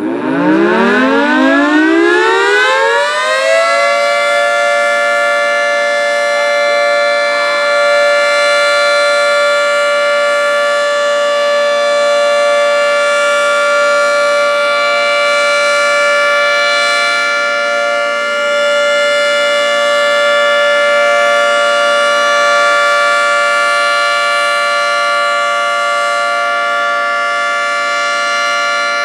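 Federal Signal 3T22A three-tone outdoor warning siren winding up over about four seconds, then holding a steady chord of several tones. This is the steady alert signal, though this siren was expected to sound hi-lo.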